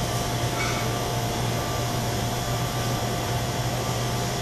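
Steady machine hum: a constant low drone and a faint steady whine over an even hiss, with no change in level.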